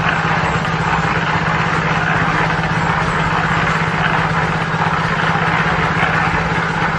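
A steady engine or machine hum, unchanging, under a constant hiss.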